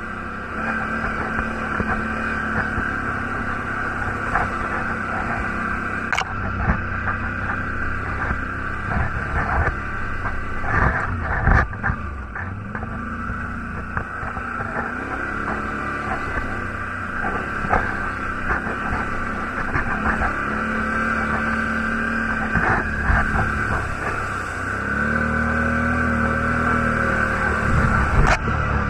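ATV engine running under varying throttle as the quad works along a rough, rutted dirt trail, its pitch stepping up and down, with a few sharp knocks along the way.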